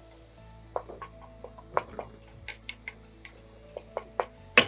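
Wooden spatula knocking and scraping against a frying pan while stirring chicken in sauce: irregular clicks and taps, with the loudest knock near the end.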